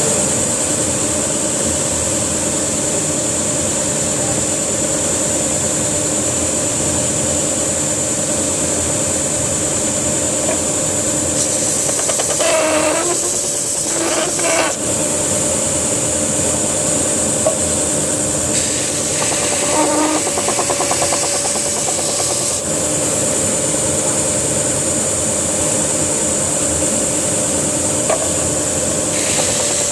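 Belt sander running steadily, with oak pressed against the belt and sanded in a rasping rub. The sound changes briefly a few times about halfway through as the work is pressed and moved on the belt.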